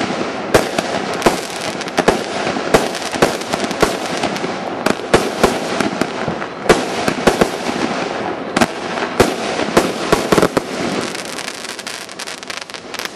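A 77-shot consumer fireworks cake (battery) firing: sharp shot bangs come several a second over a continuous hiss of launches and bursts. They thin out and get quieter in the last couple of seconds as the cake finishes.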